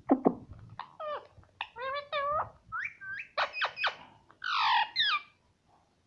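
Indian ringneck parakeet chattering: a run of short squeaky, whistled calls that bend up and down in pitch, stopping a little after five seconds. Right at the start, a sharp tap of its beak on the mirror disc on the plastic lid.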